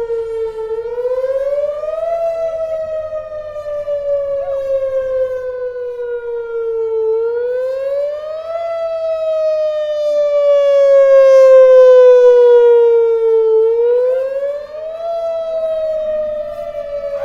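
Outdoor civil-defense warning siren with four horns, sounding during a test. Its wailing tone rises quickly, then slides slowly back down, over and over about every six and a half seconds, and swells loudest a little past the middle as the rotating horns sweep around.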